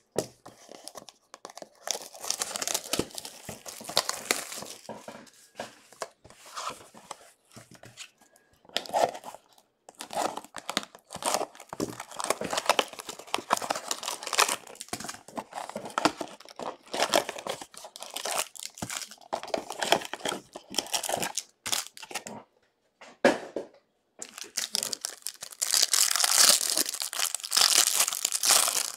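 Clear plastic shrink wrap being torn off a box of Absolute Football trading cards and crumpled, in spells of tearing and crinkling with short pauses, loudest near the end.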